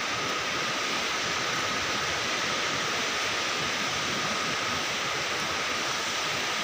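Steady, even rushing of running water, with a faint steady high tone sitting above it.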